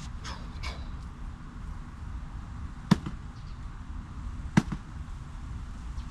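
Two sharp cracks about a second and a half apart, the loudest things here, over a steady low rumble.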